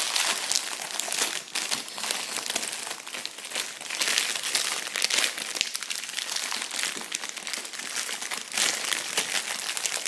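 Plastic candy wrapper crinkling and crackling as it is handled while a piece of a giant gummy sweet is broken off, with louder bursts every second or two.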